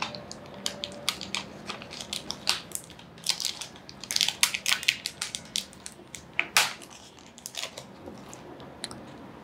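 Crinkling and crackling of a suture packet's plastic and paper wrapping as it is handled. The crackles come quick and irregular, thickest about three to five seconds in, with one sharp crackle a little after six seconds.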